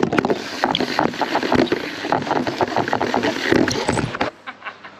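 A GoPro camera sliding down a slide, its housing scraping and knocking against the slide surface, picked up loud and close by the camera's own microphone. It starts suddenly and stops abruptly about four seconds in as the camera comes to rest.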